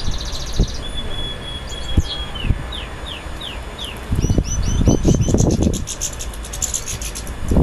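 Birds singing and calling: a high trill, a held whistle, then a run of short downward-slurred notes and rapid repeated high notes. Low thumps are heard through the middle.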